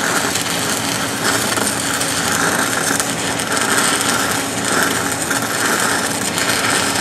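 Stick-welding arc from an E6010 electrode on steel pipe, running a third 6010 pass: a steady, harsh crackle and sizzle with spatter. The arc breaks off abruptly at the end.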